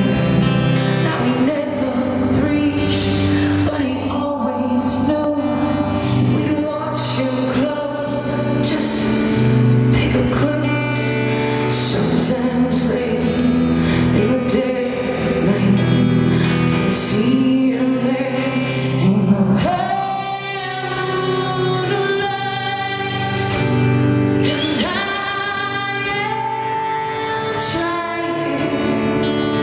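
A woman singing a song live at the microphone, with band accompaniment under her voice.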